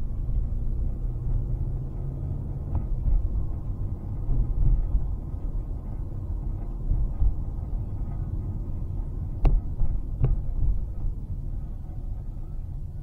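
Low, uneven rumble of a car driving along a city street, heard from inside the cabin. Two sharp knocks come a little under a second apart past the middle.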